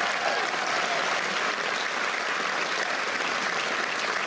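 Audience applauding steadily as the finalists walk on stage.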